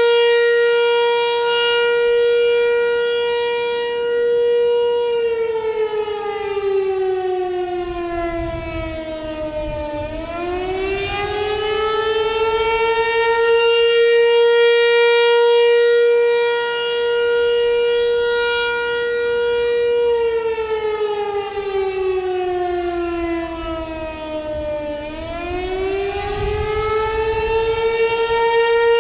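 ASC Tempest T-128 outdoor warning siren sounding a custom attack signal. A steady held tone twice falls in pitch over about five seconds, then climbs back up within a few seconds to the same held note.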